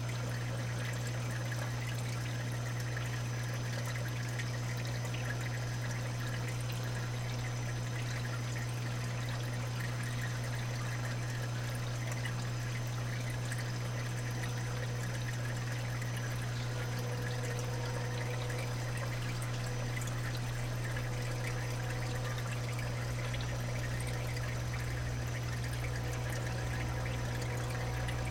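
Water steadily trickling and pouring in a saltwater aquarium's sump and refugium, over a constant low hum.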